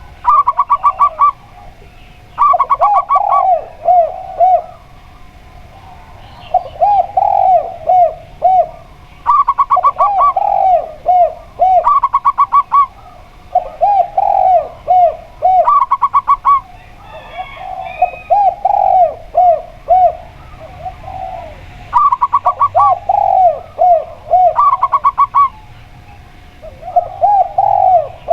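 A zebra dove and a spotted dove cooing back and forth. Quick runs of higher, even coos alternate and overlap with lower phrases of several swooping coos, each phrase repeating every couple of seconds.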